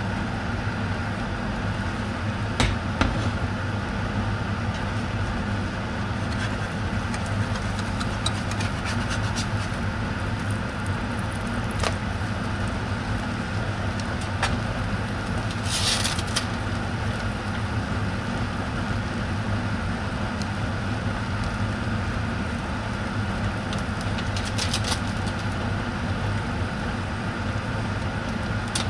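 Egg and bread frying in a non-stick pan: a steady sizzle over a low hum, with scattered clicks and knocks of the pan and utensils. A short rustle comes about halfway through and again near the end.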